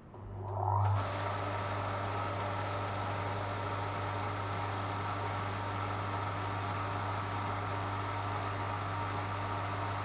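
A small liquid-circulation pump switches on: a steady low mains hum starts at once, with a short rising whine as it comes up to speed in the first second. It then runs steadily, the hum under a constant hiss of circulating water.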